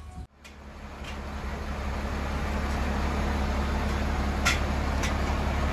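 A motor vehicle's engine running steadily with a low hum, building up over the first two seconds. Two sharp clicks about half a second apart come near the end.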